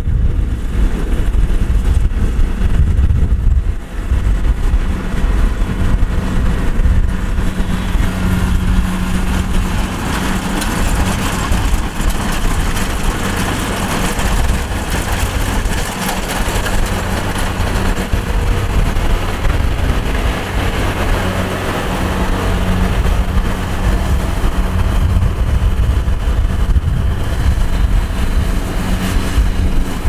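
Kubota DC-70 rice combine harvester running steadily under load, its diesel engine and threshing works droning as it cuts and threshes rice.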